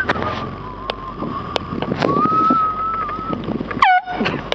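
A person whistling one long, wavering note that steps up in pitch about two seconds in, over the road noise of a car interior; the sound breaks off abruptly near the end.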